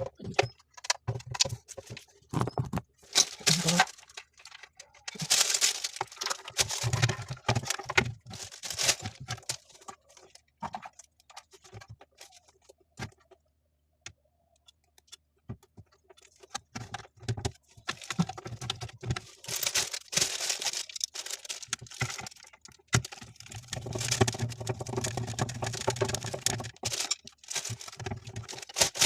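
Irregular clicks, knocks and rustling from hands working with tools and parts, with a quieter pause about halfway through.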